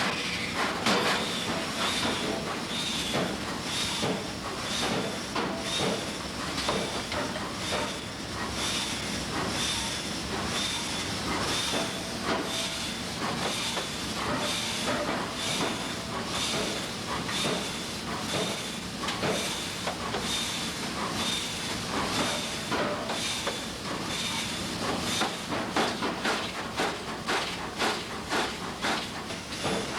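Hammer blows on hot steel at an anvil while forging a wrench, struck steadily a couple of times a second, many of them with a short high ring, over a steady hiss.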